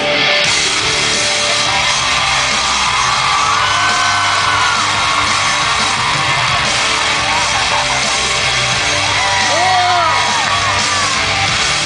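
Loud music with a steady beat filling a large hall, over a crowd yelling and whooping, with several whoops rising and falling about four seconds in and again near the end.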